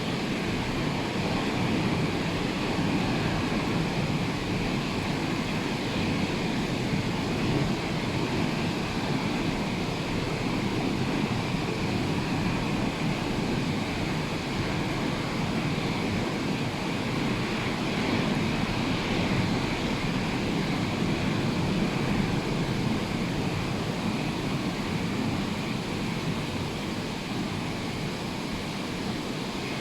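Surf from a rough sea, waves breaking and washing in a steady continuous rush that swells and eases slightly.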